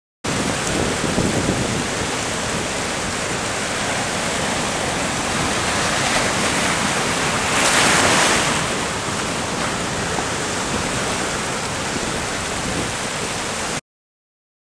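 Sea surf breaking and washing over rocks, a continuous rushing wash with one wave surging louder about eight seconds in.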